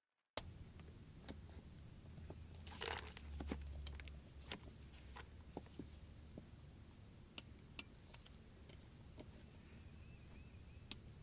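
Faint handling noises: scattered light clicks and taps of plastic and metal parts, with a rustle about three seconds in, as a new filter and O-rings are fitted into a truck's crankcase ventilation (CCV) module. A low steady hum lies underneath.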